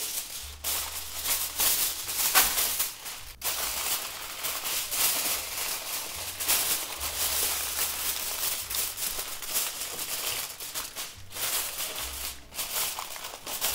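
Aluminium foil crinkling and crackling as it is pressed tightly over a baking dish of ribs, a continuous run of rustles and sharp crackles.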